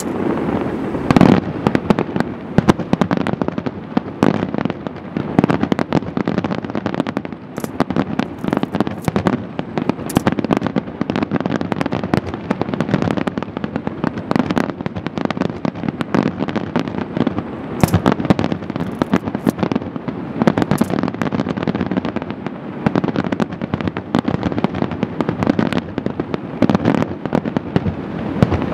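Dense barrage of aerial firework shells bursting: many sharp booms and cracks in quick, overlapping succession over a continuous rumble, with no pause.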